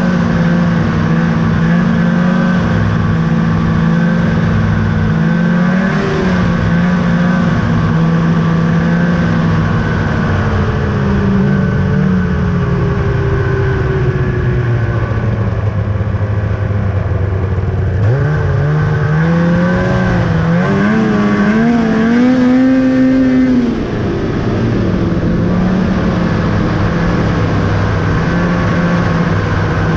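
2000 Ski-Doo Summit 800 snowmobile's two-stroke twin engine running at a steady trail speed. Its pitch sags about halfway through, climbs again as the throttle is opened, drops back a couple of seconds later, then settles into a steady cruise.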